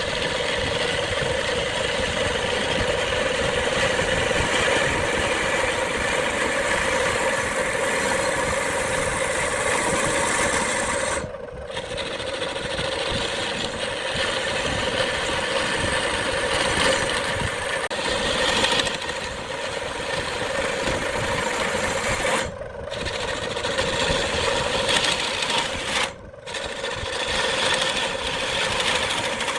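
Wood lathe running steadily with a tool working the spinning wood-and-epoxy blank, a continuous machine noise that drops out briefly three times.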